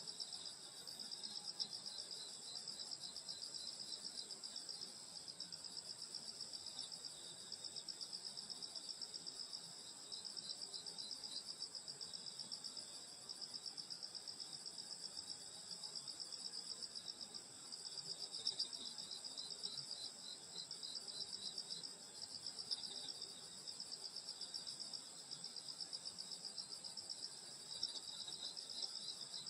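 A steady, high-pitched chorus of crickets and other grass insects, with a second, lower insect joining now and then with short runs of rapid chirps.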